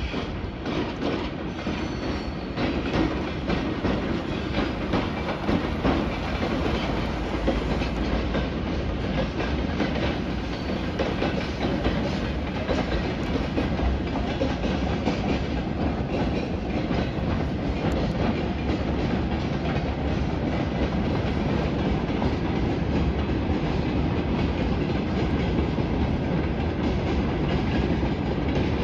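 Freight train rolling past, wheels clicking repeatedly over the rail joints in a steady, continuous rumble that grows a little louder about two seconds in.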